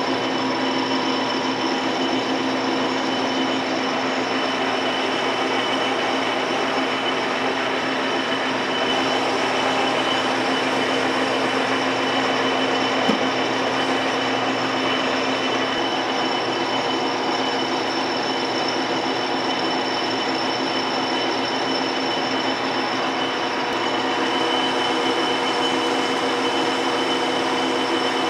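Metal lathe running steadily with a constant whine, a boring bar cutting inside the bore of a spinning steel workpiece.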